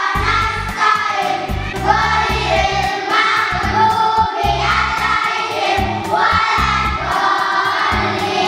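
A classroom of children chanting a prayer aloud together in unison, in a sung, singsong way, over background music.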